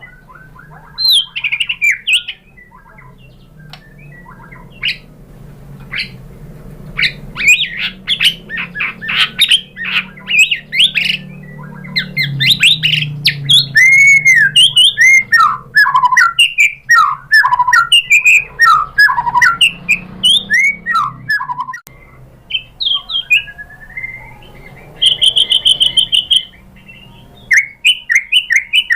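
White-rumped shama singing a long, varied song: loud whistled notes, slurred up-and-down glides and fast runs of repeated notes, with short pauses, and a rapid even trill on one pitch a few seconds before the end.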